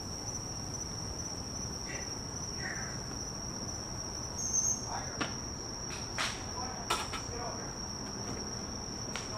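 Steady high-pitched chirring of night insects, with a few sharp knocks between about five and nine seconds in: acorns dropping from an oak tree and bouncing off a wooden deck.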